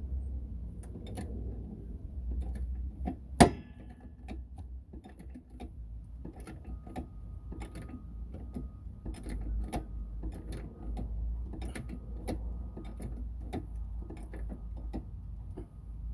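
Metal hand tools clicking and clinking at irregular intervals during work on a car wheel, with one loud, sharp metallic clang about three and a half seconds in.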